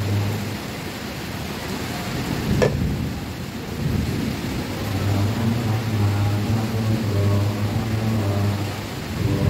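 Voices chanting together on one low, steady pitch, in long held phrases that stop for a few seconds early on and then resume, over a steady hiss of rain. A single sharp knock about two and a half seconds in.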